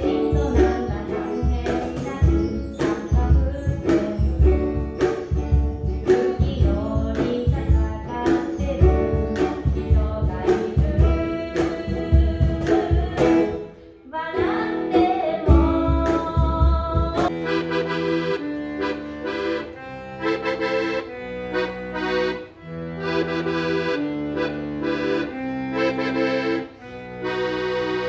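Instrumental music with no singing: a steady drum-and-bass beat under melody, then about seventeen seconds in the drums drop out and held chords carry on, changing every second or so.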